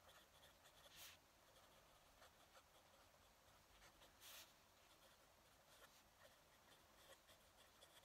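Faint scratching of a fountain pen nib on paper, in many short strokes, with louder scratches about a second in and again around four seconds.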